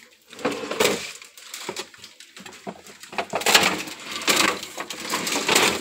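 Plastic produce bags crinkling and food items being shifted around in a refrigerator, in several short rustling, clattering bursts.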